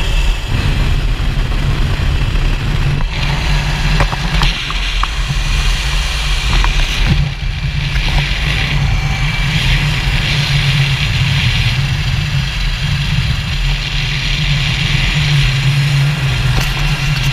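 Zip line trolley's pulley wheels rolling along the steel cable at speed: a loud, steady rolling whir with a deep hum underneath.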